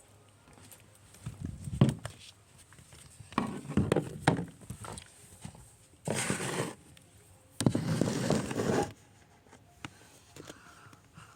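Slime and its plastic containers being handled: several separate short crackling, squishing bursts, the two loudest in the second half.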